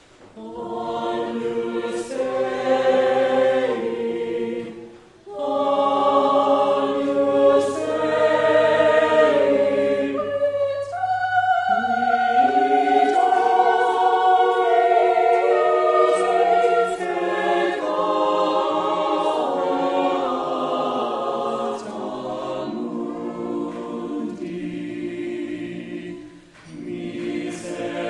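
A choir singing: sustained sung phrases, with short pauses between phrases about five seconds in and again near the end.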